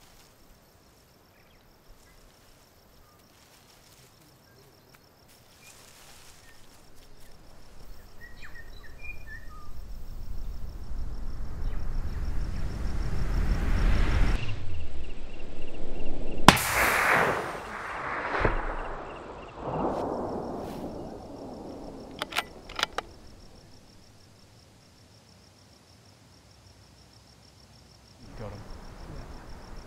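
A low rumble swells over several seconds and cuts off abruptly. About two seconds later a single loud .300 Winchester Magnum rifle shot goes off, followed by a long rolling echo. Two sharp clicks come a few seconds after.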